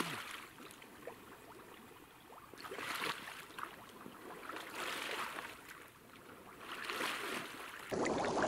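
Wading through shallow water and weedy mud, a sloshing swish with each step roughly every two seconds. Near the end it turns into a steadier, louder rush.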